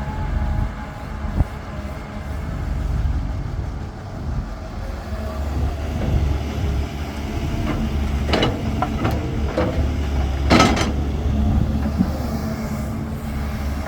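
Caterpillar 320 hydraulic excavator's diesel engine running with a steady low drone. Several metallic clanks and rattles come between about eight and eleven seconds in, the loudest near the end of that stretch.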